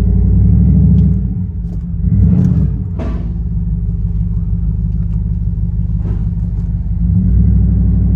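Cammed 5.3-litre LS4 V8 of a Chevrolet Impala SS, heard from inside the cabin, running with a choppy, pulsing idle and swelling a few times under light throttle as the car creeps forward.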